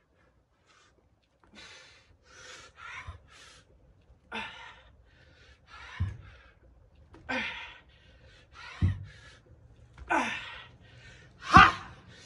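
Hard, forceful exhales and gasps from a man working through reps of dumbbell clean and presses, about one every second and a half. Dull low thumps come roughly every three seconds, the loudest near the end.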